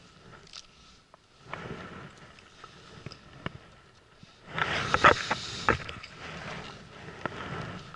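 Rustling and a few sharp knocks from someone shifting about in a small inflatable boat, loudest for about a second and a half just past the middle.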